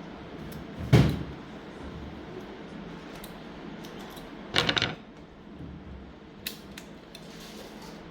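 Handling noises of small hard objects: a sharp knock about a second in, a short clattering rattle about halfway through, then a couple of light clicks.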